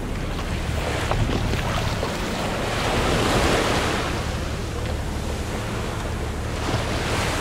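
Small waves washing onto a sandy beach, swelling about three seconds in, with wind on the microphone and a steady low hum from the boat's engine underneath.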